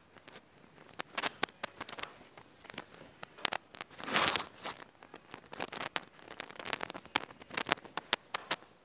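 Rustling and scattered small clicks of a patient being handled and repositioned during chiropractic treatment, with a brief louder rush of noise about four seconds in.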